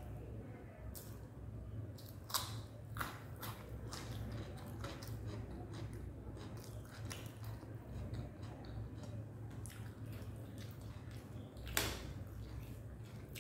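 A person chewing a mouthful of soft fried potato, egg and rice, with irregular wet mouth clicks and smacks. The louder clicks come a couple of seconds in and near the end, over a steady low hum.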